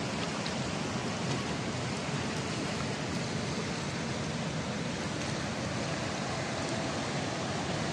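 Steady, even rush of water with no distinct events.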